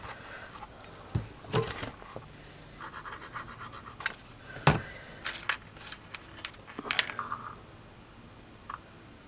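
Light crafting handling sounds: bamboo skewer pieces and a greyboard model tapping and scraping on a cutting mat while a hot glue gun is used, a scatter of sharp clicks and taps with short scratchy stretches, the loudest knock about halfway through.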